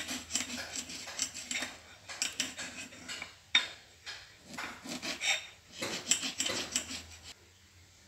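A knife cutting lemon pieces on a plate: irregular taps and scrapes of the blade against the plate, with one sharper click in the middle. The cutting stops shortly before the end.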